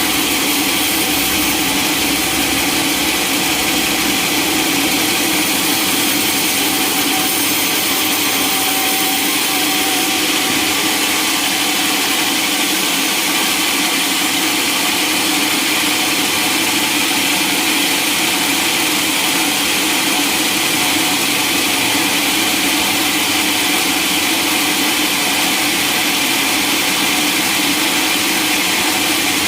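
Sawmill machinery running steadily, a loud, even, hissing machine noise with no change in level.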